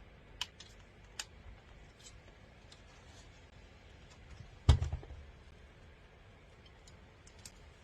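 Handling noise: scattered light clicks and taps of the small plastic cooler and its cable being handled, with one heavy thump a little past halfway, as of the unit being set down.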